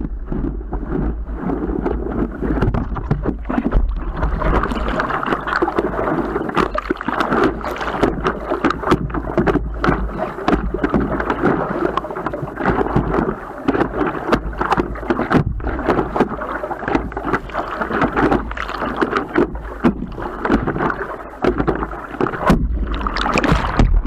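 Seawater rushing and splashing irregularly against a stand-up paddleboard riding and paddling through choppy surf, with wind rumbling on the board-mounted camera's microphone. The sound cuts off suddenly at the end.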